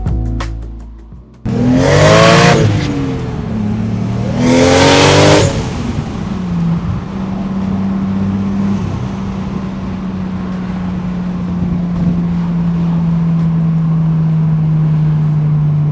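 Turbocharged Toyota 1JZ inline-six in an MK3 Supra accelerating hard in two short bursts, the engine note rising and falling each time, then settling into a steady drone that slowly drops in pitch as the car cruises.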